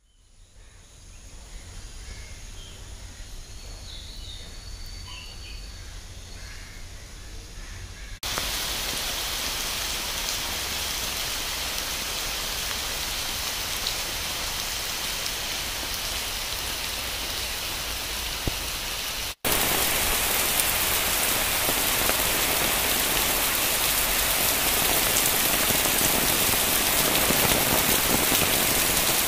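Steady heavy monsoon rain falling on wet pavement and foliage, an even hiss. It starts abruptly about eight seconds in and gets louder after a short break near the middle. Before that there is a quieter stretch with a low rumble and a few faint bird calls.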